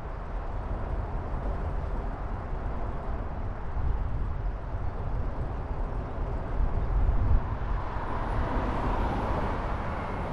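Wind buffeting the microphone and road noise from a moving bicycle: a steady low rumble, with a louder rush swelling about eight seconds in and easing off near the end.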